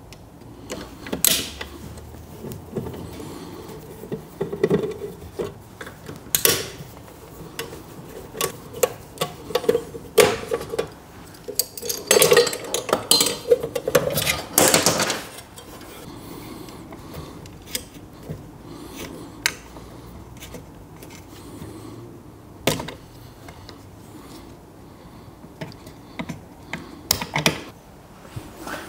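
Handling noises from taking apart a wall-mounted stainless steel can filler: irregular clicks, knocks and metal scraping as its cover and fittings are worked loose, with a busier stretch of rattling and scraping about halfway through.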